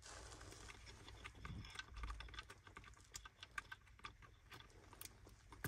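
Faint, scattered clicks and ticks of plastic wiring connectors and cables being handled and pushed into sockets on the back of an aftermarket car radio unit.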